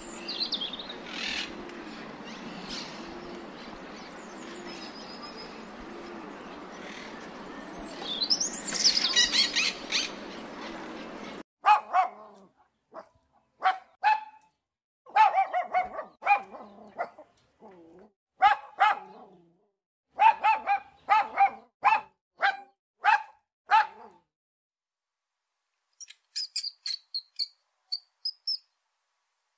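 Budgerigar chirping over a steady hiss, then a litter of nursing puppies yelping and whimpering in a string of short, high cries, followed after a pause by a quick run of very high squeaks near the end.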